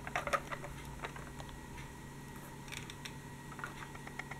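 Faint, scattered clicks and light taps from fingers handling a toy articulated trolleybus.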